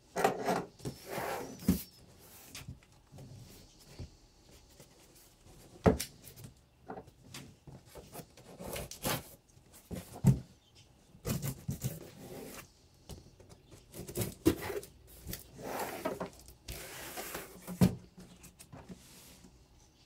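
Cardboard shipping box being handled and opened: irregular rubbing and scraping of cardboard flaps, with a few sharp knocks as the box is moved about.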